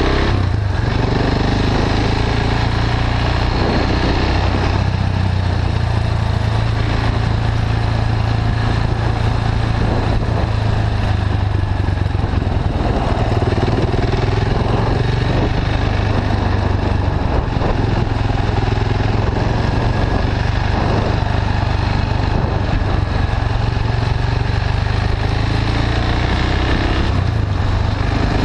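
KTM 690 Duke's single-cylinder engine running through an Akrapovic slip-on exhaust with a catalytic-converter bypass pipe, heard from on the bike as it is ridden. The note rises and falls several times as the rider opens and closes the throttle, picking up speed near the end.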